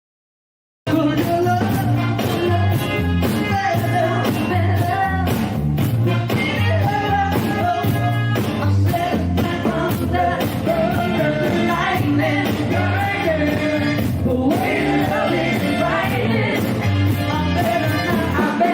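A live cover band playing rock music with a singer, starting suddenly about a second in after silence, with a steady beat.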